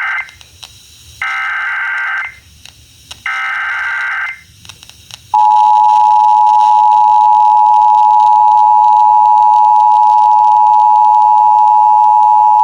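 Emergency Alert System SAME header: three one-second bursts of warbling digital data tones, the first already under way, followed about five seconds in by the long steady attention tone that signals the spoken warning to come.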